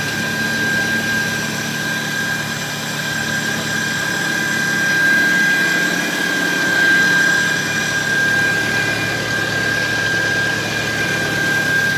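Farmall Cub tractor's small four-cylinder engine running steadily, with a thin steady high whine over its low hum.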